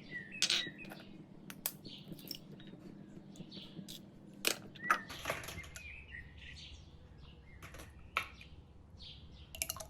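Eggs being tapped and cracked against a bowl, giving sharp clicks at irregular intervals, with a quick cluster of taps near the end. Small birds chirp repeatedly in the background.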